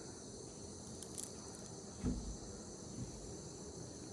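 Insects droning steadily at a high pitch, with one dull thump about two seconds in.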